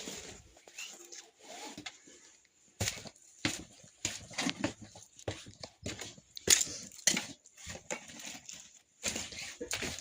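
Irregular short knocks and rustles, a few to the second, with quiet gaps between them.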